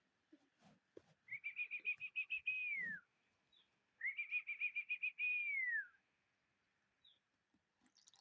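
A high, bird-like whistled call, given twice: each time a quick trill of pulses on one pitch that ends in a held note gliding down.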